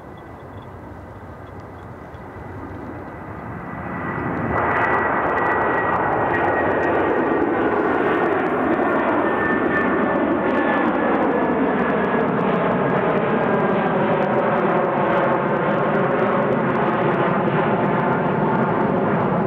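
Boeing 757-300's two turbofan engines at takeoff thrust as the jet lifts off and climbs out. The sound swells over the first four seconds to a loud, steady rush. A high whine in it slowly drops in pitch, and sweeping tones move through the rumble as the jet climbs.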